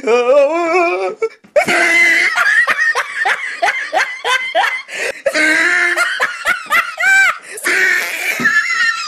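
Loud, hearty human laughter in rapid breathy bursts, with a short stretch of wavering voice in the first second.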